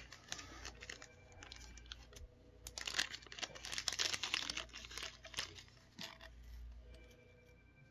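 Crinkling and tearing of plastic packaging being handled, a dense run of crackles from about three to five and a half seconds in, with lighter rustling before and after.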